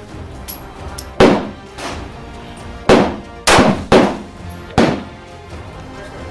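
Five sharp bangs or knocks at uneven intervals, each with a short ringing tail.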